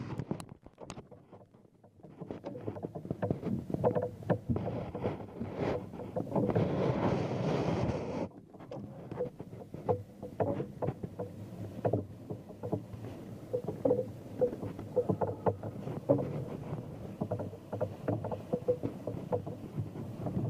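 Wind on the microphone and water noise aboard a boat on open water, with many irregular small knocks and clunks; a sharp knock right at the start and a stronger rush of wind noise about six to eight seconds in.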